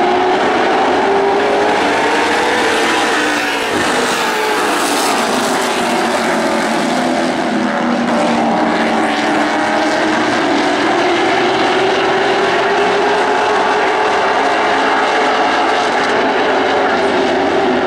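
A pack of NASCAR Late Model stock cars racing around a short oval, their V8 engines running hard. Several engine notes overlap, rising and falling in pitch as the cars go through the turns and down the straights.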